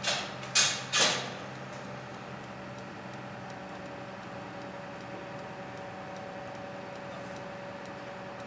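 Crane's engine running steadily as it holds a heavy crate aloft, with a steady whine coming in after a couple of seconds. Three short, sharp bursts of noise in the first second.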